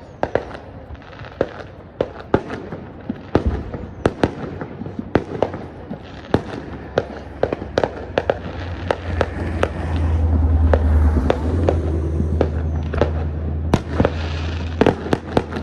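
Fireworks going off: many sharp bangs at an irregular, rapid pace, over a low rumble that grows louder about two-thirds of the way through.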